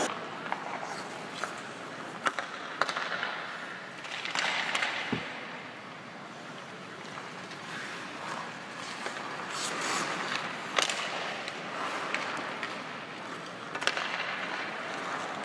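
Ice rink sounds: hockey skates scraping and carving the ice in swells, with scattered sharp clacks of sticks and pucks.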